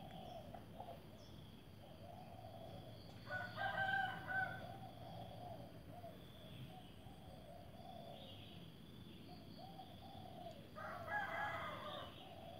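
A rooster crowing twice, each crow lasting just over a second: once a few seconds in and again near the end.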